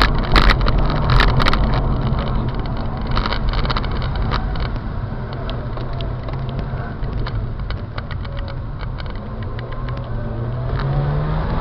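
Mazda RX-8's twin-rotor Wankel rotary engine running at low revs with tyre and road noise, heard from inside the cabin. There are a few sharp clicks in the first second and a half. Near the end the engine note rises as the car accelerates.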